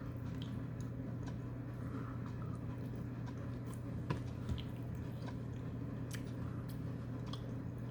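A baby chewing and smacking on soft food, with scattered small clicks and one sharper tap about four seconds in, over a steady low hum.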